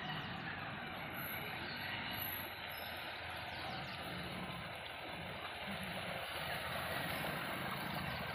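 A Honda SP 125's single-cylinder engine runs steadily as the motorcycle wades slowly through deep floodwater, its wheels pushing through the water.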